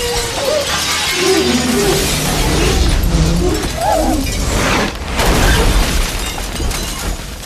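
Film sound design of a huge explosion: glass shattering and debris blasting outward over a deep rumble, with music beneath. About two-thirds through the sound drops briefly, then a fresh blast rushes in.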